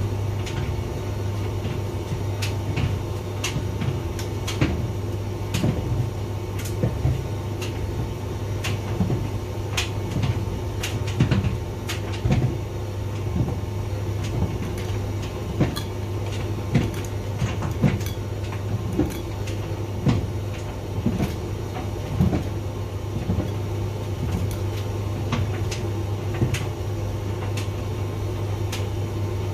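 Hotpoint vented tumble dryer running: a steady motor and drum hum with irregular knocks and clicks as the load tumbles in the drum.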